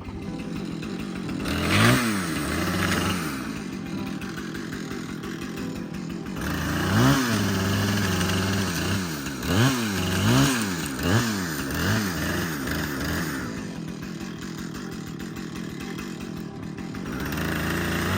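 A small engine idling and being revved up and back down: once about two seconds in, then in a quick series of five or six revs from about seven to twelve seconds in, before settling back to a steady run.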